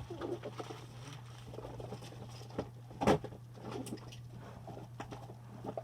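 Plastic and squishy fidget toys being handled and set down: light clicks and rustling, with one louder knock about three seconds in, over a steady low electrical hum.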